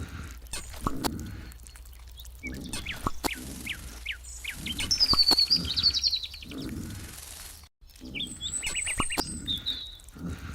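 Small birds chirping, with a rapid high trill about five seconds in, over scattered clicks and knocks.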